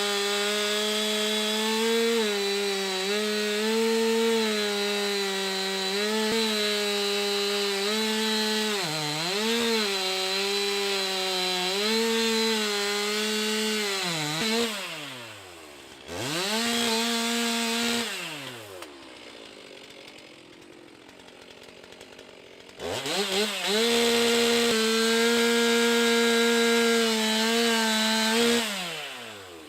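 Stihl MS 362 C-M two-stroke chainsaw at full throttle cutting wood, its pitch dipping a little now and then as the chain takes load. About fifteen seconds in it drops back to idle with a short blip of the throttle. It revs up again for another cut a few seconds later and drops off near the end.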